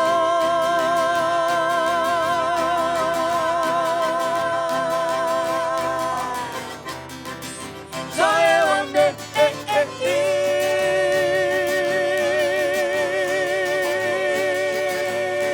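Sertanejo song: a long sung note with vibrato is held for about six seconds and then fades. A few quick instrumental notes follow, then a steady sustained instrumental note or chord holds to the end.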